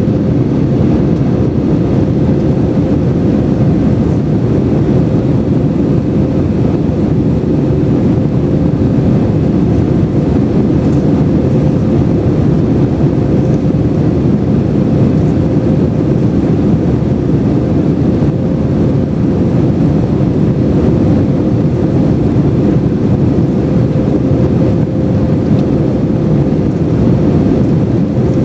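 Steady cabin noise inside an Airbus A321-200 airliner: an even, loud rush from the engines and airflow, with a faint steady hum running through it.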